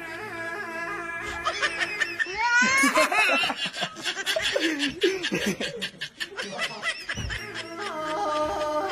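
Music with held notes gives way about two seconds in to a girl laughing for about five seconds, in repeated rising bursts. The music comes back near the end.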